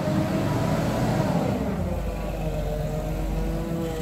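Gas-powered forklift engine running, its pitch rising and falling as it manoeuvres.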